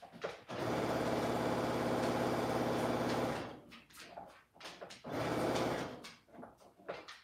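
Electric sewing machine stitching in short runs: a steady run starting about half a second in and stopping after about three seconds, then a shorter run of under a second a couple of seconds later.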